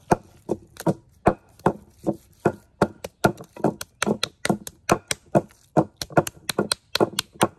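Steady chopping on a wooden board: a quick run of sharp knocks, about three a second at first and speeding to four or five a second in the second half.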